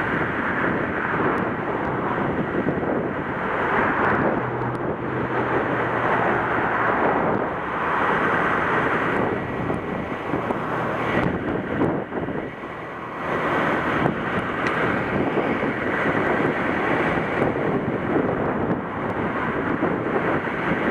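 Wind gusting over the microphone and through tall grass, over the steady rush of ocean surf, swelling and easing every few seconds. A faint low hum comes in twice along the way.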